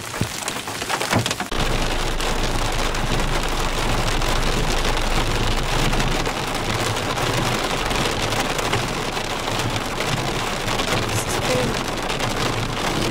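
Heavy rain falling steadily. A few sharp taps come in the first moments, and a low engine hum runs beneath the rain from about a second and a half in.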